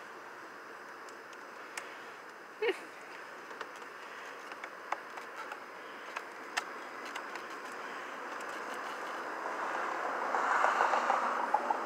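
Small clicks and taps of a truck's bed light bulbs and housing being handled, over a steady background hum. A brief squeak comes about three seconds in, and a louder spell of rustling and clicking comes near the end.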